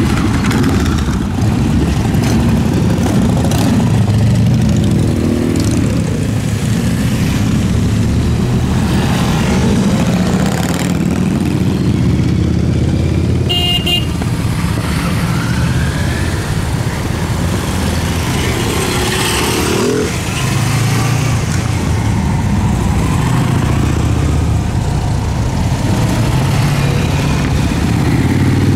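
A column of motorcycles riding slowly past one after another, engines running and revving as they go. There is a brief horn toot about halfway through.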